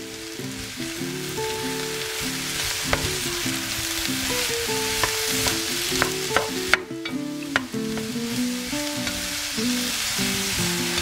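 Diced eggplant, zucchini and grated carrot sizzling in oil in a pot as a spatula stirs them, with a few sharp knocks of the spatula against the pot. Background music plays throughout.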